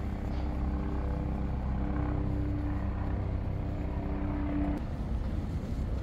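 Steady engine drone with a low rumble and a humming tone that stops about five seconds in.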